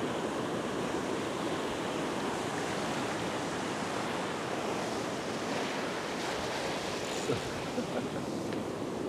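Ocean surf breaking and washing up the beach, a steady rush of waves.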